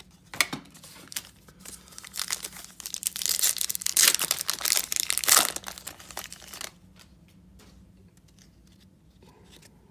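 A trading-card pack wrapper being torn open and crinkled. A few sharp clicks come first, then about four seconds of crackling, loudest near the middle, which stops abruptly.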